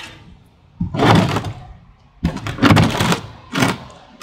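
A hard plastic oil drain pan shifted and knocked on a concrete driveway under a motorcycle, in three loud bursts of scraping and hollow thuds.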